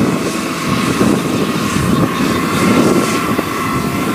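Farm machinery engine running with a steady drone and a faint thin whine above it.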